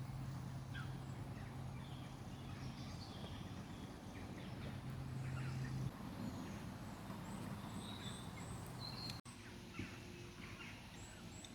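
Wild birds calling and chirping in short scattered notes over outdoor ambience, with a steady low hum underneath that stops about six seconds in.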